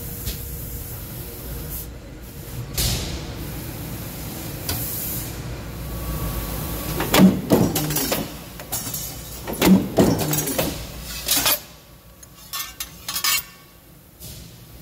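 Steady machine hum in a metal shop, then from about seven seconds in a run of loud metallic clanks and bangs as steel sheet is handled and cut at a power shear. The two loudest bangs come about two and a half seconds apart, followed by a few lighter knocks.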